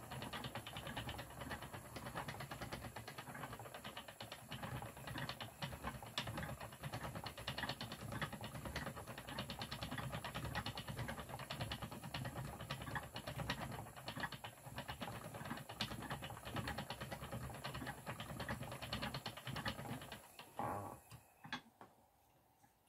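Wooden treadle spinning wheel running as yarn is spun, its flyer and treadle making a rapid, even clatter. The clatter dies away about two seconds before the end as the wheel stops.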